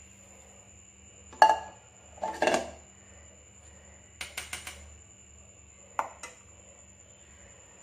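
A steel spoon clinking against a steel bowl and a kadhai as syrup is ladled out of the pickle: a sharp clink about a second and a half in, a few more knocks and clinks, including a quick run of four near the middle and two near the end.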